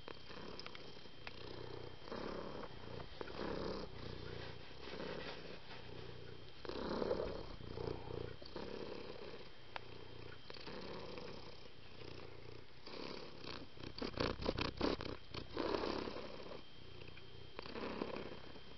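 Domestic cat purring, in an even rhythm of swelling breaths roughly once a second. About three-quarters of the way through there is a quick run of crackling taps, the loudest moment.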